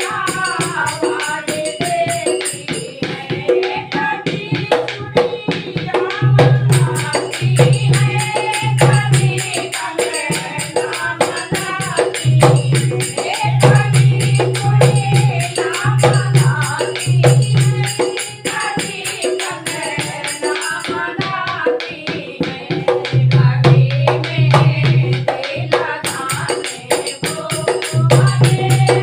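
Hindi devotional bhajan: singing over a rhythmic accompaniment with tambourine-like jingles and a low drum beat, which drop out briefly a couple of times.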